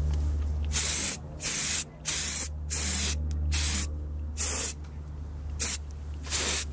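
Aerosol can of clear lacquer spraying in short bursts, about eight in a row, each hiss lasting under half a second.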